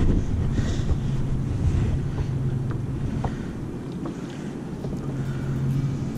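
Wind blowing over the microphone, with a steady low hum underneath.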